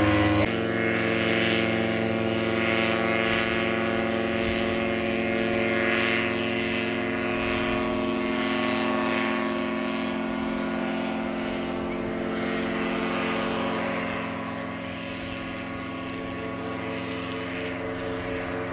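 Earthstar Laughing Gull ultralight flying overhead, its single-cylinder two-stroke Rotax 277 engine and propeller droning at a steady pitch. A louder stretch cuts off abruptly about half a second in, and the drone grows fainter over the second half as the plane draws away.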